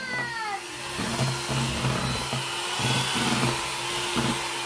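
Electric hand mixer running steadily, its beaters churning thick chocolate batter.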